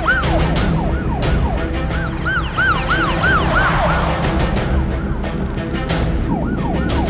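Emergency-vehicle siren of a pursuing car in a fast yelp, rising and falling about three times a second. It drops out after about four seconds and comes back near the end, over dramatic background music with sharp percussive hits.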